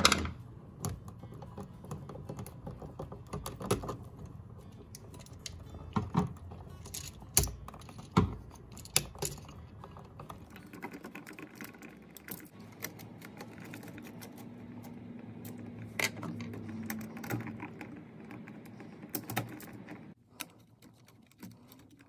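Irregular small clicks and metallic taps as a screwdriver works the terminal screws of a household duplex outlet and the wires are pulled off the terminals.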